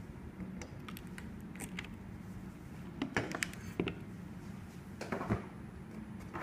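Scattered light clicks and taps in a few small clusters as test equipment and probe leads are handled on a wooden desk, over a steady low hum.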